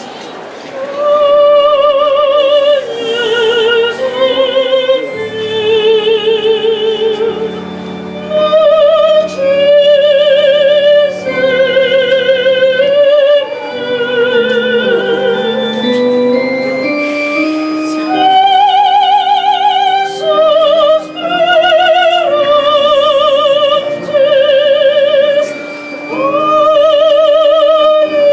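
A soprano singing a plegaria, a sung prayer to a Holy Week paso, in operatic style. She holds long notes with wide vibrato over sustained organ chords, with brief pauses between phrases.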